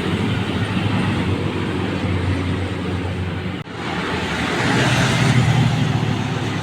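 Road traffic passing, with vehicle engines running steadily. There is a momentary break in the sound about three and a half seconds in, then a vehicle passes close and louder with tyre hiss around five seconds in.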